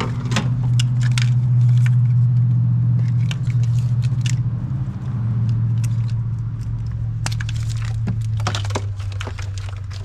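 Clicks and rattles in scattered clusters as ignition-coil connectors and the wiring harness are unclipped and handled by hand on the engine. A steady low hum runs underneath.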